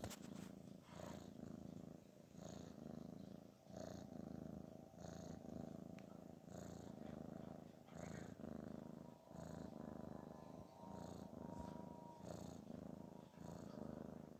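Domestic cat purring softly and steadily, the buzz swelling and easing with each breath about every second and a half: a relaxed, contented purr.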